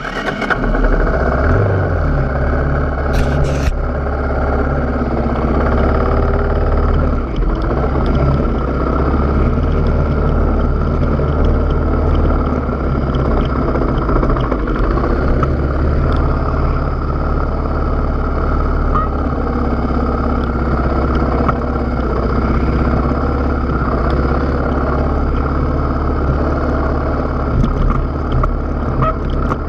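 Off-road enduro motorcycle engine running as the bike rides a rough, rutted dirt track, fairly steady but easing off briefly a couple of times. A short clatter about three seconds in.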